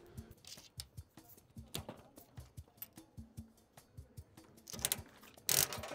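Clicks and rattles of a coin-operated capsule toy vending machine's coin slot and knob being worked by hand, with a louder clatter near the end.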